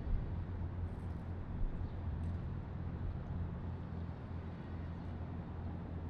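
Harbourside ambience: a steady low engine hum over an even wash of background noise, with a few faint ticks.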